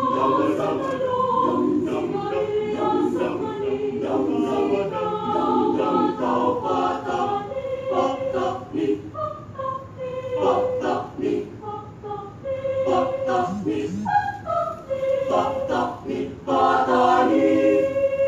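University chorale singing a cappella, several voice parts at once in short, rhythmic notes.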